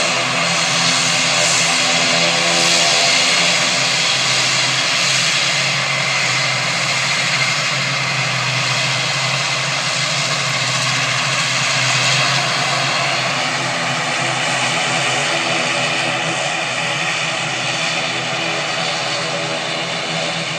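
A propeller airplane's engines running steadily close by, a continuous drone with several steady tones, growing slightly quieter over the second half.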